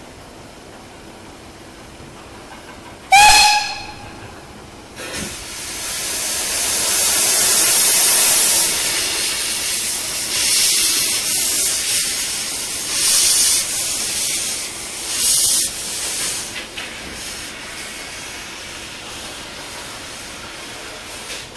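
Miniature steam locomotive sounding one short whistle blast. Its open cylinder drain cocks then hiss loudly as it starts away, surging several times before easing off to a weaker hiss.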